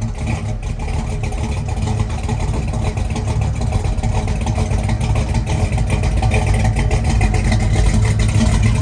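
A car's engine and exhaust running at a low pitch, growing steadily louder.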